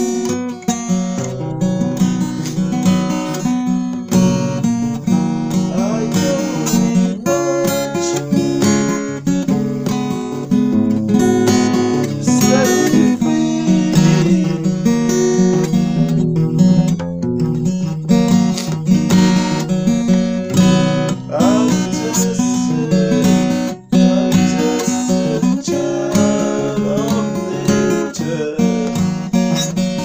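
Acoustic guitar music, strummed and plucked, playing steadily throughout.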